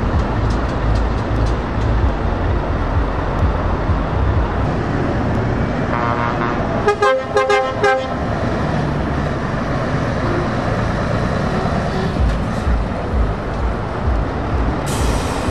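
Scania tractor unit's diesel engine running as the truck pulls slowly away with its trailer, and an air horn sounding a quick run of short toots about halfway through. A short hiss of air near the end.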